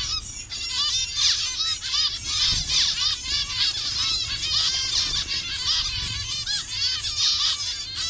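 A colony of zebra finches calling together: many short, high chirps overlapping in a dense, unbroken chatter.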